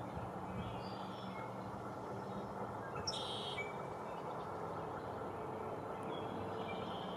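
Steady outdoor background noise with a low hum, with a few faint bird chirps over it. A brief, sharper hissy sound comes about three seconds in.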